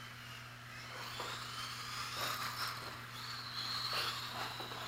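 Electric motors of radio-controlled rally cars whining, the pitch rising and falling as they speed up and slow down.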